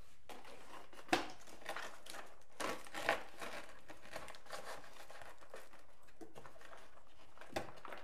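Handling noise from a flight battery being fitted into a foam RC jet's fuselage while its wires and plug connectors are worked: rustling and crinkling with sharp clicks, the loudest about a second in, a few more around three seconds in and one near the end.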